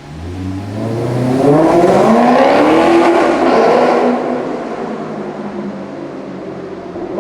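Supercar engine accelerating hard in a tunnel. Its pitch climbs steadily over about three seconds, then the engine eases off and the sound dies down.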